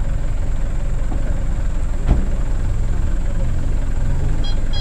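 Dump truck's diesel engine idling steadily, with one sharp knock about two seconds in. Near the end its reversing beeper starts.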